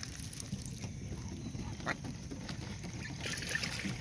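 Mallard ducklings peeping faintly over a steady low rumble of wind and water, with one short sharp sound about two seconds in.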